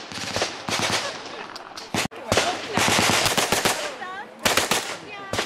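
Bursts of fully automatic submachine gun fire, with a rapid, dense burst about two and a half seconds in. A voice is briefly heard near the end.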